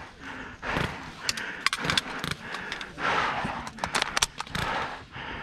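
Irregular sharp clicks and snaps of airsoft guns firing during a skirmish, over rustling and scraping of clothing and gear.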